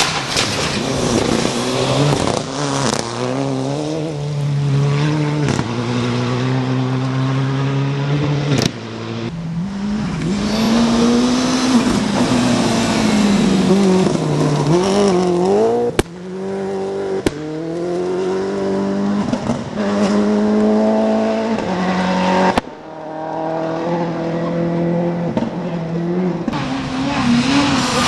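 A run of rally cars passing one after another at speed on a gravel stage, including a Mitsubishi Lancer Evolution, a Subaru Impreza and a Ford Fiesta. Their engines rev up and drop back through the gear changes over the hiss of spraying gravel. The sound cuts abruptly from one car to the next three times.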